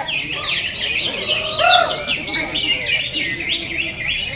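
Cucak ijo (green leafbird) singing a fast, continuous run of high chirps and twitters, with a short lower whistled note about a second and a half in.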